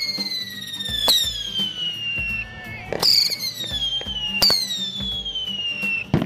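Firework whistles going off one after another. Each starts with a sharp pop, then whistles and falls in pitch for about a second and a half. A new one starts roughly every one and a half to two seconds, about four in all.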